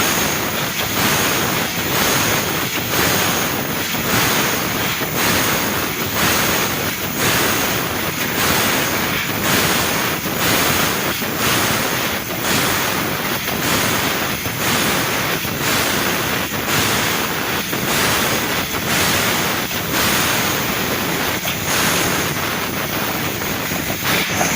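Industrial laser cutting machine running: a loud, steady hiss with a regular pulse about once a second.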